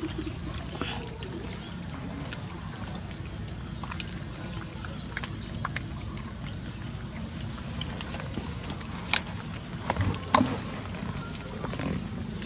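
Long-tailed macaques picking food pellets from an open hand: scattered small clicks and taps over a steady low rumble, with a few sharper knocks about nine to ten and a half seconds in.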